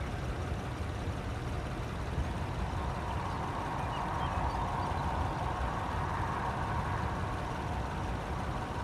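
Steady low rumble of wind and a vehicle engine running nearby, with a rushing noise that grows stronger about three seconds in.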